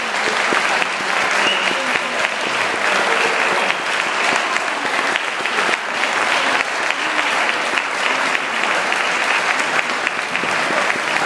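Audience applauding steadily after a performance, a dense, even clapping.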